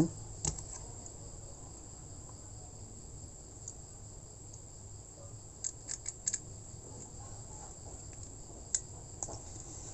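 A few faint, sharp clicks and taps of a plastic two-way switch and its screw terminals being handled as a wire is fitted, over a steady high-pitched background hiss.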